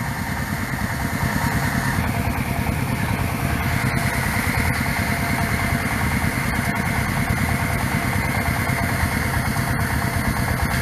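Engine of a small water-well drilling rig running steadily with a fast, even low throb while it drills.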